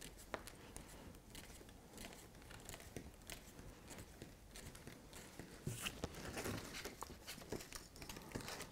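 Fine wire strands being twisted and split apart by hand to form the branches of a model tree armature: faint scattered ticks and rustles as the wires rub and spring against each other, a little busier about six seconds in.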